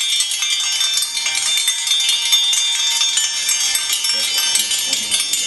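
Dense, high metallic jingling and shimmering, like many small bells or chimes shaken together, starting abruptly and running steadily.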